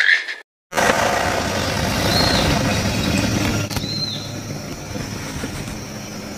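A steady motor-like hum under dense rushing noise, with two short high whistled notes about two and four seconds in.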